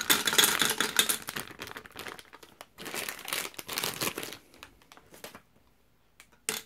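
Plastic candy bag crinkling as peanut M&Ms are poured from it into a glass gumball-machine globe, the candies clattering in quick bursts. The pouring thins out after about four and a half seconds, and one short tap comes near the end.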